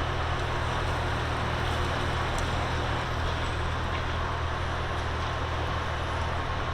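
Freightliner semi truck's diesel engine idling steadily: a constant low hum with an even hiss over it, heard from inside the cab.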